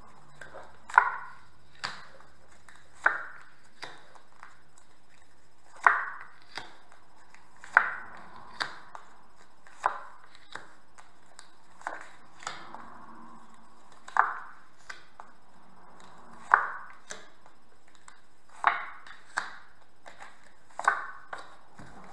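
Oracle cards being dealt one at a time onto a tabletop: a series of sharp taps and light slaps, one every second or two.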